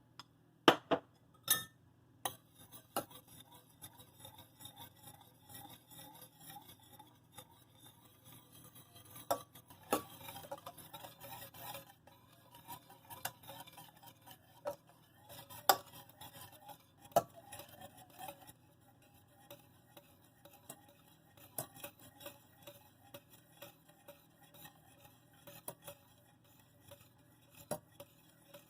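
Kitchen utensil clinking and scraping against glassware while stirring a mixture, with a few sharp clinks near the start and scattered taps throughout.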